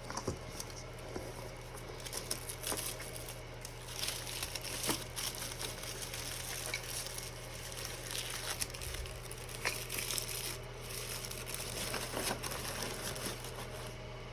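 Wrapping material crinkling and rustling in irregular crackly strokes as eggs are wrapped by hand, over a steady low hum.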